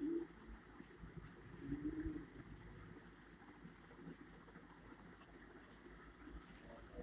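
Faint scratching of a pen tip on paper as quick, short hatching strokes are drawn.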